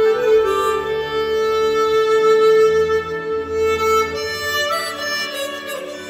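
Chromatic harmonica playing a slow melody: one long held note for about four seconds, then moving to other notes near the end.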